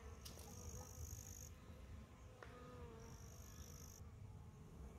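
Faint buzzing of honeybees gathered on wet mud, with a high, thin insect trill in two spells of about a second each.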